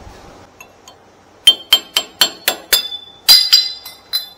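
A hammer striking a steel chisel on the truck's wheel-hub hardware, metal on metal: about nine sharp, ringing blows, roughly four a second, with a short break before the last three.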